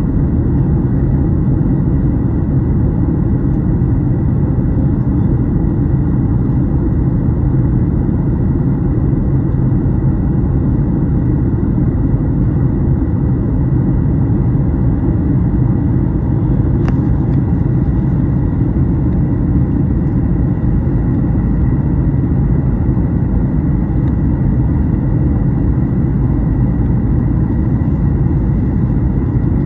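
Steady cabin noise inside a Boeing 737 MAX 8 in flight, heard at a window seat by the wing: a loud, even rush of airflow and engine drone from its CFM LEAP-1B turbofans, with a faint steady high whine above it. A faint click sounds once, about seventeen seconds in.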